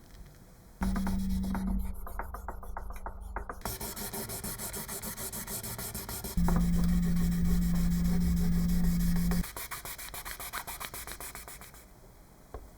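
Sanding: rapid, even rubbing strokes over a surface, with a power tool's steady hum that starts about a second in and comes back louder in the middle.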